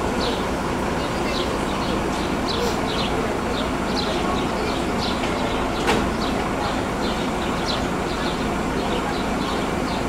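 Truck-mounted crane's engine running steadily, with many short bird chirps over it and a single sharp click about six seconds in.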